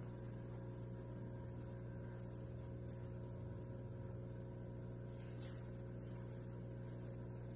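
A steady low electrical hum with a few faint higher tones held above it, unchanging throughout; a faint tick about five and a half seconds in.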